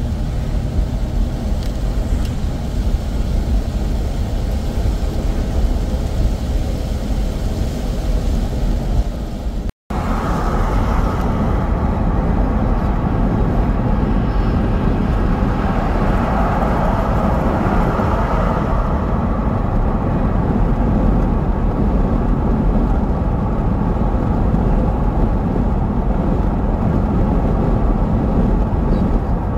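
Car driving, heard from inside the cabin: steady road and engine noise. In the first part, tyres hiss on a rain-soaked road. After a short break about ten seconds in, steady highway road noise continues.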